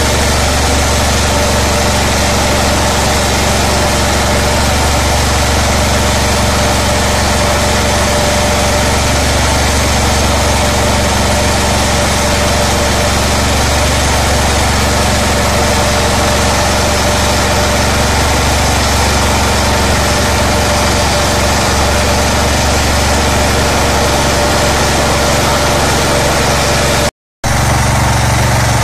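Small single-cylinder petrol engine fitted with an LPG converter kit, running steadily as it drives a mini rice huller, mixed with the huller's steady whirring as rice passes through. The sound cuts out for a fraction of a second near the end.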